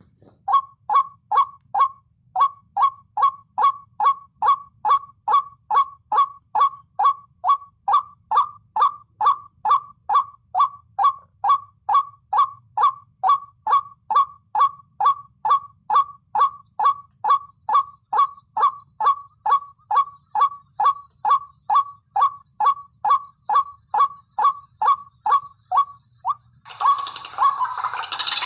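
White-breasted waterhen (ruak-ruak) calling: one short, falling, honking note repeated very evenly about twice a second, on and on. Near the end a noisier, rougher sound takes over.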